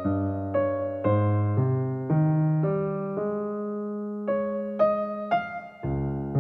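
Background music: gentle electric piano playing a slow sequence of chords and notes, each struck and left to fade.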